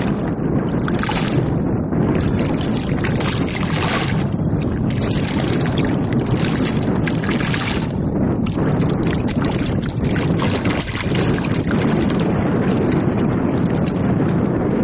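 Wind buffeting the microphone: a steady low rumble with gusts of hiss every second or two.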